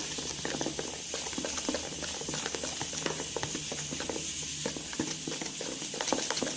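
Foamy detergent-and-toilet-paper slime being stirred hard with a spoon while the washing-powder activator is worked in: a steady stream of small wet, crackling pops.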